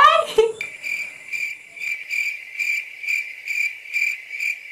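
Cricket chirping: a steady high-pitched trill pulsing about twice a second, starting suddenly under a second in.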